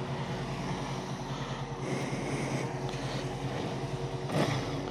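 Honda VFR800 V4 engine idling steadily, heard close to the exhaust, while the welded silencer-to-collector-box joint is checked for an exhaust blow. A short knock sounds near the end.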